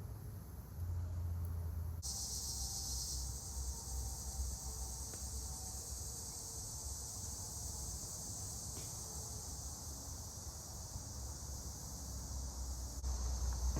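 Steady high-pitched chirring of an insect chorus, coming in abruptly about two seconds in, over a low rumble.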